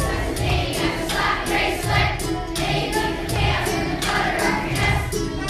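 A large group of schoolchildren singing a song together as a choir, over music with a steady beat of about two strokes a second.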